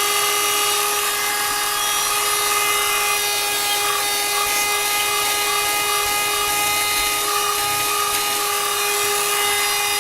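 Small battery-powered YD610 wet-and-dry car vacuum cleaner running at full speed with its power-brush attachment fitted: a steady high motor whine holding one pitch.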